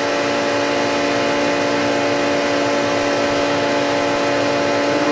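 Radyne induction heating system running with the power on while a part heats inside its copper work coil: a steady electrical hum of several held tones over a fan-like rush.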